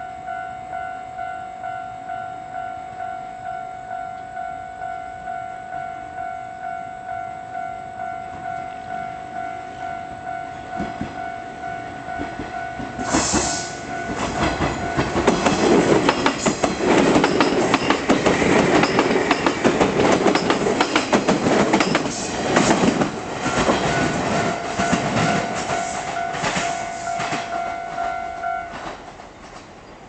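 Japanese level-crossing alarm ringing a repeated tone, about one and a half strokes a second. About thirteen seconds in there is a sudden loud burst as a limited express electric train arrives and passes close by, with rapid clickety-clack of wheels over the rail joints for about fifteen seconds. The crossing alarm stops about a second and a half before the end, once the train has passed.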